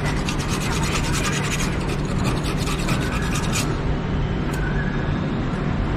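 Section of a rusty Yamaha FZ exhaust pipe being rubbed by hand with a strip of sandpaper to take the rust off: fast, scratchy back-and-forth strokes, strongest in the first few seconds and lighter after that.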